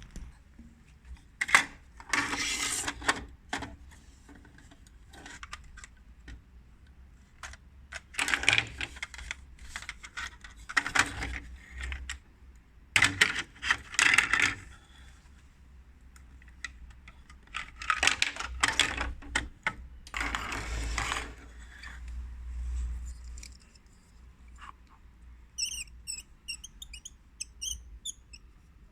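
Plastic toy parts clicking and rattling as they are handled and fitted together, in several bursts of clatter a few seconds apart. Near the end there is a short run of high chirps.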